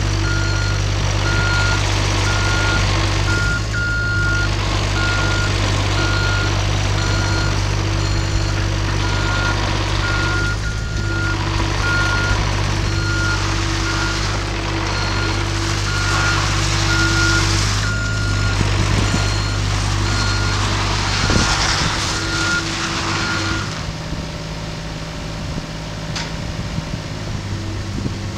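Cat 303.5 mini excavator's diesel engine running steadily while its travel alarm beeps over and over as the machine tracks and turns; bursts of hiss rise and fall with the work. The beeping stops about 24 seconds in, and the engine carries on a little quieter.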